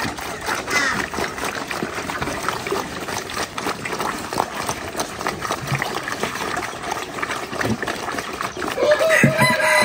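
Water splashing and trickling steadily, with a short call near the end.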